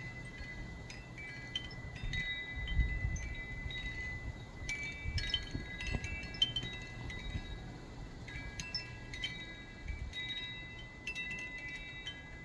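Wind chimes ringing irregularly, many clear metal tones struck at random moments and overlapping as they ring on, over a low rumble.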